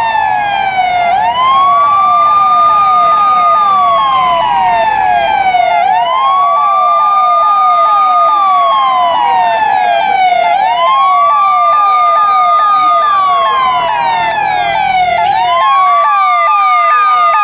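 Police car siren sounding two tones at once. One is a wail that climbs quickly, holds high, then slides slowly back down, repeating about every four and a half seconds. The other is a rapid tone that sweeps downward several times a second.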